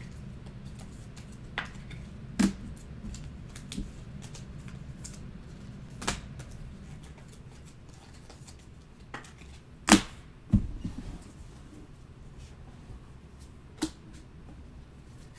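Trading cards and packs being handled on a table: scattered sharp clicks and taps, the loudest about ten seconds in, over a steady low hum.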